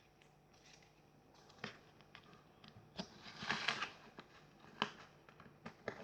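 Slime being stretched and worked by hand: scattered sticky clicks and crackles, busiest about three and a half seconds in.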